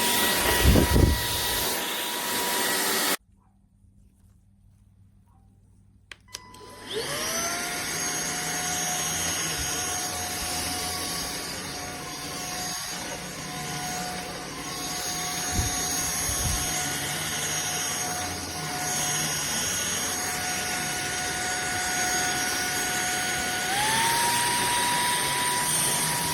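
Cordless stick vacuum cleaner running with a steady motor whine, then cutting out about three seconds in. A few seconds later it starts again, the whine rising as the motor spins up, and runs steadily. Near the end the whine steps up in pitch.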